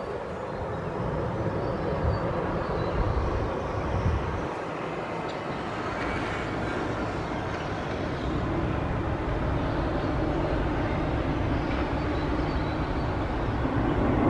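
Airbus A380 on landing approach, its four turbofan engines making a steady jet rumble that grows slowly louder as the airliner comes nearer.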